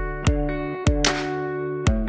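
Background music with held chords over a steady beat.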